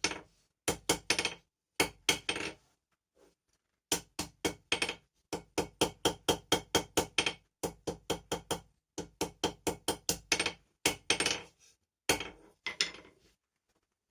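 Hammer striking hot steel on an anvil in quick runs of ringing blows, about three to four a second, broken by short pauses.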